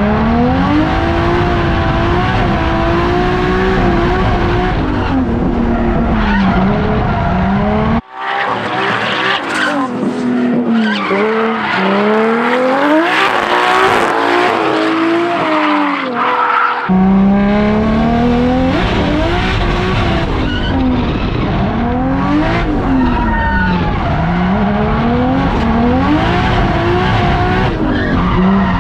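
A drift car's engine revving up and down over and over while the tyres skid and squeal through slides. For several seconds in the middle the deep engine note falls away, and a thinner, hissier tyre-and-engine sound takes its place before the full sound returns.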